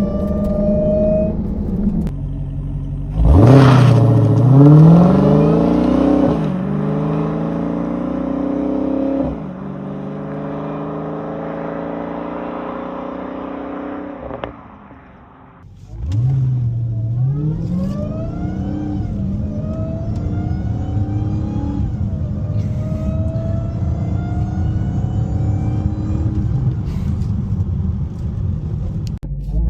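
Dodge Hellcat's supercharged V8 idling, then accelerating hard about three seconds in, its pitch climbing through a couple of upshifts before the sound fades away. After a brief break about halfway, it accelerates again, rising in pitch through several gear changes.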